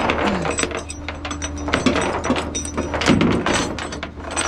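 A string of clunks and knocks from a car door and handling around a vehicle, over a low steady hum.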